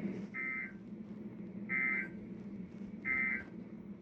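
NOAA Weather Radio sending three short SAME end-of-message data bursts, buzzy electronic tones each about a third of a second long and evenly spaced about 1.3 s apart. They mark the end of the severe thunderstorm warning broadcast. A low steady hum runs underneath.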